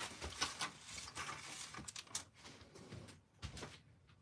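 Small parts and hand tools being handled on a metal workbench: scattered light clicks and taps.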